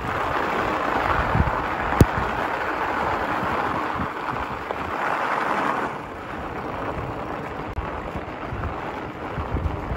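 Riding a fat bike over packed snow: a steady hiss of the tyres rolling on the snow mixed with wind on the microphone, with one sharp knock about two seconds in. The hiss drops off about six seconds in.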